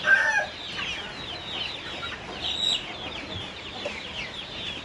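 Chickens calling: the end of a rooster's crow in the first half-second, then a steady run of short, high, falling peeps and clucks.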